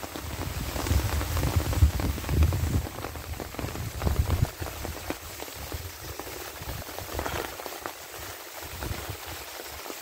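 Light rain falling, a steady hiss of fine drops. A low rumble runs under it for the first four seconds or so, then dies away.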